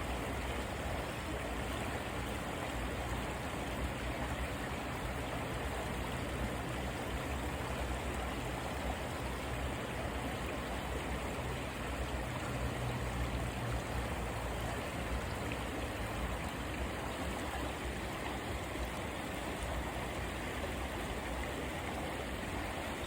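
Clear river water flowing steadily, a continuous even rush of water.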